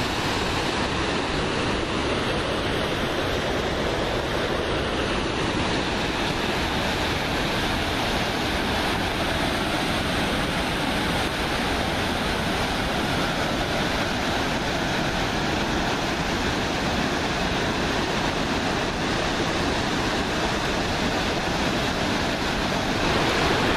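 Whitewater of a mountain river rushing over boulder rapids: a steady, even rushing noise.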